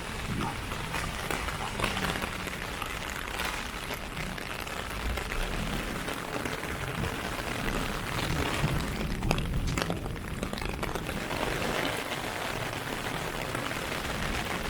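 Heavy rain falling, a steady hiss dotted with many sharp drop hits, over a low rumble.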